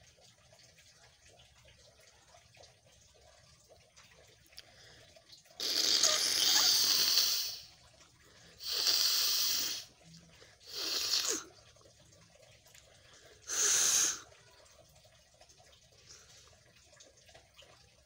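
A person blowing their nose four times: a long first blow of about two seconds, then three shorter ones with pauses between.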